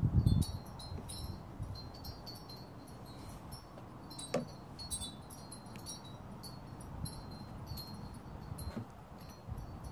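Wind chimes tinkling irregularly in the breeze: scattered short, high, ringing notes. There is a brief low rumble at the very start and a single sharp knock about four seconds in.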